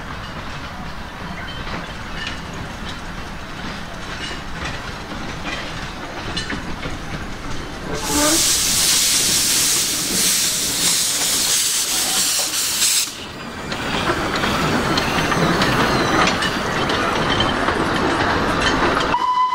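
Small narrow-gauge steam locomotive running steadily toward the listener. About eight seconds in, a loud hiss of escaping steam starts as it passes close and cuts off about five seconds later. Its open wooden passenger wagons then rumble and clatter past on the rails.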